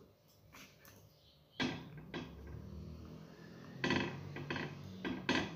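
Kitchenware being handled as rotis are set aside: a sudden knock about one and a half seconds in, a low shuffling rub, then a few sharp clinks and knocks near the end, like plates or a knife knocking on a plate.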